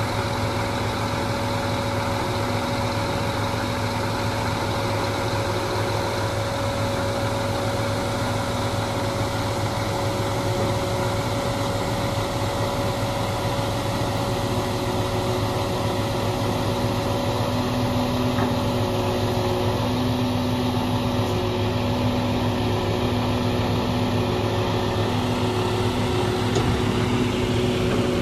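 Scania G450 truck's straight-six diesel engine running steadily while it drives the hydraulics of its Palfinger loader crane as the boom is lowered and extended: a continuous low hum with a faint held whine, whose tone shifts a little about two-thirds of the way through.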